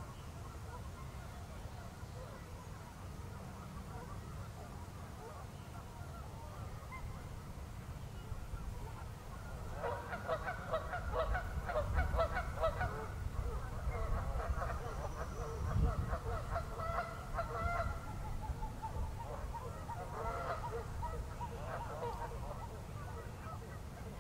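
A flock of birds calling: many short calls overlapping, starting about ten seconds in and thinning out near the end, over a steady low rumble.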